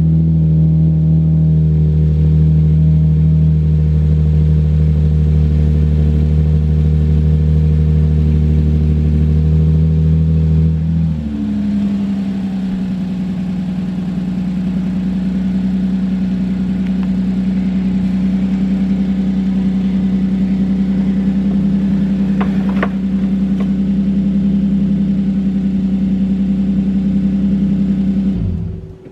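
Air suspension compressor humming steadily as a lowered Lexus IS250 airs up. Its pitch steps up about a third of the way in, and it cuts off near the end. About two-thirds through comes a brief crack: the thick rear tyres rubbing free of the inside of the rear fenders as the car rises.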